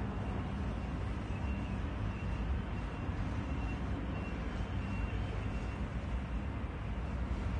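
Steady low rumble of road traffic, with a few faint short high-pitched tones in the first few seconds.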